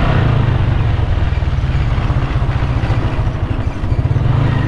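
A vehicle engine running steadily, loud and close, with a fast, even low pulsing.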